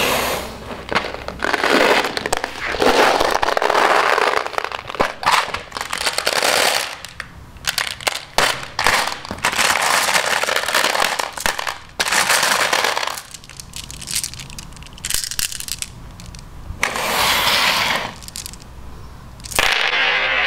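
Glass marbles clattering and clinking against each other in a plastic tub, stirred in bursts by a hand, with quieter gaps between. Near the end they are poured out onto the floor.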